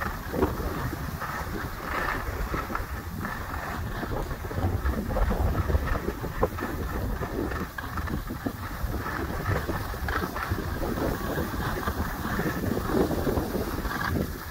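Wind buffeting the microphone of a camera carried at speed down a groomed ski run, with the irregular hiss and scrape of edges sliding over packed snow.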